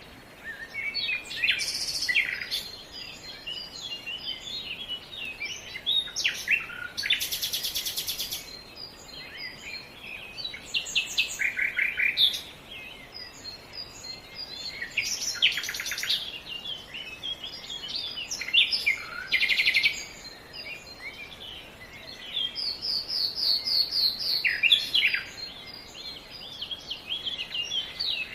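Several songbirds singing and calling together: a steady stream of short chirps, rapid trills and song phrases, some very high and buzzy, over a faint background hiss.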